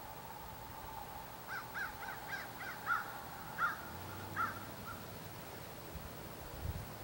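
A bird calling outdoors in a quick run of about ten short, arched calls, a few a second, lasting about three and a half seconds, over a faint steady hum.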